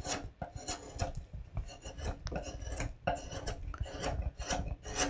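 No. 4 long-bent carving gouge, 25 mm wide, pushed by hand through wood. It shaves off chips in a quick, irregular series of short cuts, about two to four a second.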